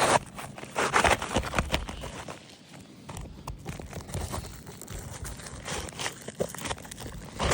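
A brittle roof shingle being slid and worked back into place under the course above: short, irregular scraping, crackling and clicking of shingle against shingle, busiest in the first two seconds, then sparser.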